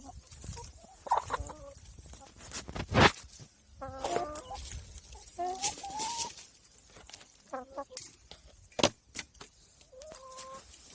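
Domestic hens clucking in a series of short calls, with two sharp knocks, one about three seconds in and another near the ninth second.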